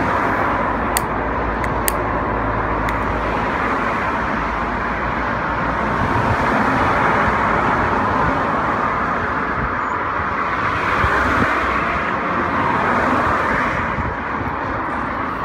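Steady road traffic noise, with passing vehicles swelling louder about seven and eleven seconds in. A few small clicks about one and two seconds in.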